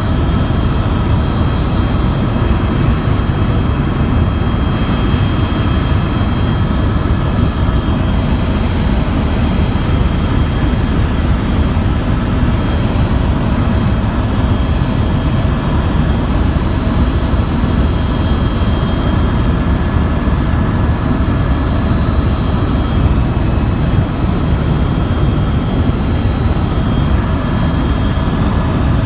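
Tour helicopter in flight: steady loud rotor and engine noise, with a few constant high-pitched whine tones over a deep rumble.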